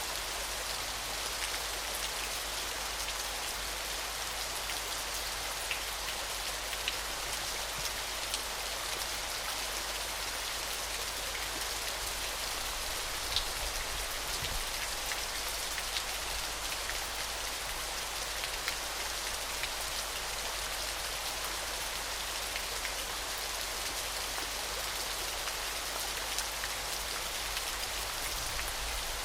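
Waterfall: a steady, even hiss of falling water, mostly high in pitch, with scattered small splashing ticks.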